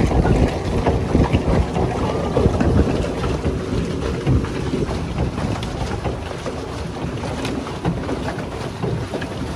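Wind rumbling on the microphone over water churning and splashing from a pedal boat being pedalled across the lake.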